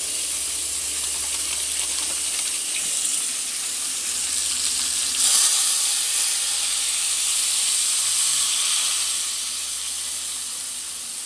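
Tap water running into a plastic container. About five seconds in, chicken-bouillon broth poured into a hot pan of browned chicken drumettes sets off a sudden loud sizzle and hiss that eases off near the end.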